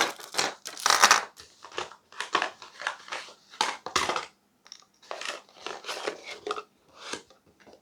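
Plastic accessory packaging crinkling and rustling as it is handled, in many short uneven bursts with a sharp click at the start.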